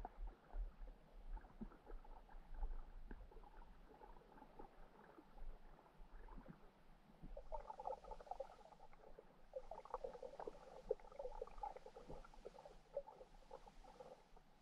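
Faint underwater ambience heard through a GoPro's waterproof housing on the seabed: a low muffled rumble with a scattered crackle of small clicks, which grows denser about halfway through and again a few seconds later.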